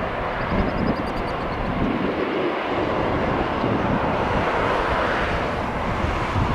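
Boeing 777-200LR's twin turbofan engines at takeoff thrust on departure: a steady, loud jet roar that swells a little midway, with some wind on the microphone.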